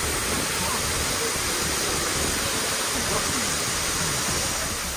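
Steady rushing of a waterfall in a rocky gorge, an even unbroken wash of water noise.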